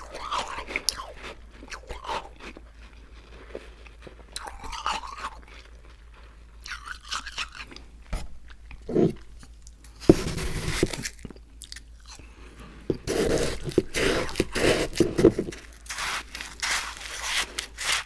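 Close-up crunching and chewing of icy Icee slush, in irregular bouts with short pauses between mouthfuls.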